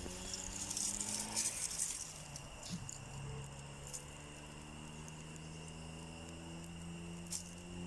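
Outdoor ambience: a steady high, thin insect-like tone over a low droning hum whose pitch slowly shifts, with a few faint crackles in the first couple of seconds.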